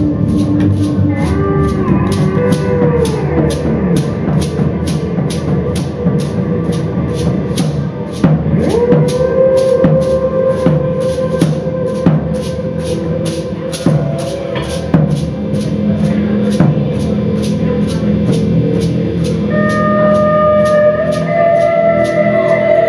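Live experimental music: a steady ticking pulse a little over twice a second over sustained tones that slide up and down in pitch.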